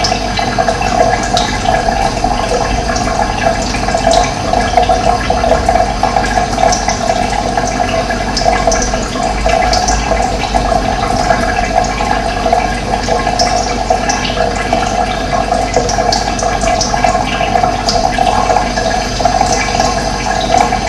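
Running water, a steady, unbroken rush with a strong mid-pitched gurgle, and brief high chirps scattered through it.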